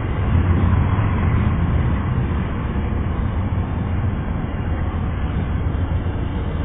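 Amtrak Amfleet passenger coaches rolling past, slowing for a station stop: a steady low rumble of steel wheels on the rails that eases slightly.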